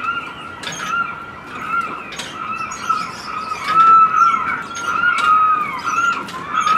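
Moving parts of an outdoor animated clock's mechanism squeaking in a steady back-and-forth rhythm, about two rising-and-falling squeaks a second, with light high clicks.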